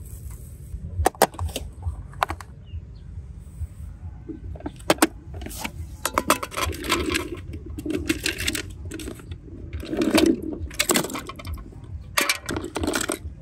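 Orbeez water beads clicking and rattling against one another and a clear plastic box as they are scooped and poured, in several clusters of clatter. A steady low rumble lies underneath.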